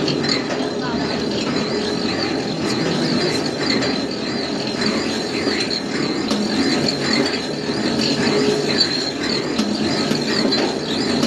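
Pedal-powered washing machine being pedalled: the bicycle chain, sprockets and pinion gears turn a drum of water and clothes, with a steady mechanical rattle and a high squeal that wavers rapidly up and down.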